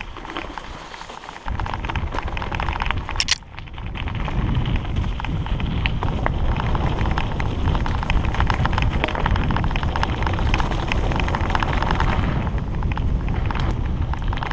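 Hardtail mountain bike rolling fast down dirt singletrack: tyres on dirt and leaves, a continuous rattle of the bike over the bumps, and wind rumbling on the camera's microphone, with a sharp click about three seconds in.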